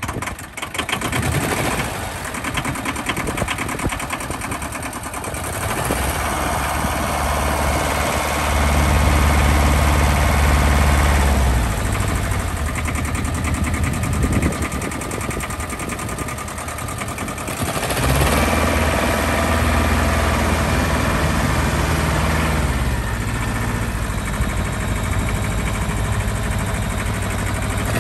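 Ford 1500 compact tractor's three-cylinder diesel engine running, its revs raised and held for a few seconds, dropped back to a lower speed about halfway through, then raised again.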